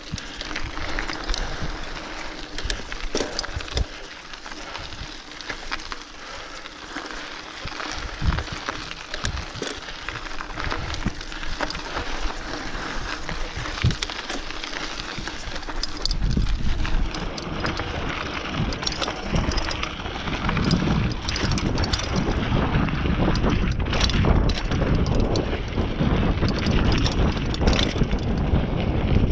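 Mountain bike riding down a dirt singletrack: tyres crunching over dirt, with many small rattles and clicks from the bike over bumps. Wind buffets the microphone as a low rumble that grows much louder about halfway through.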